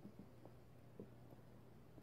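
Near silence: room tone with a low hum and a few faint ticks as steel tweezers touch the parts of a Seiko 6139 watch movement.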